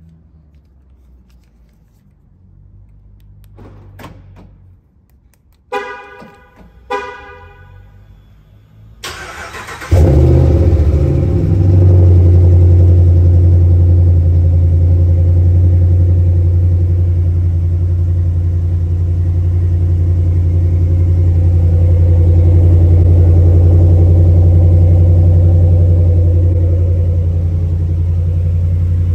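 Two short car-horn chirps, then the 2018 Ram 1500's 5.7 L Hemi V8 cranks briefly and fires about ten seconds in with a loud flare. It settles into a steady, loud cold-start idle through the exhaust.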